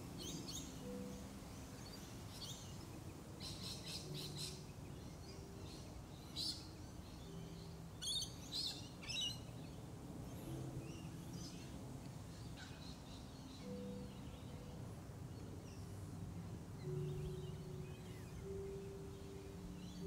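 Rainbow lorikeets giving short, high screeching calls in scattered bursts, the loudest a cluster of several calls about eight to nine seconds in.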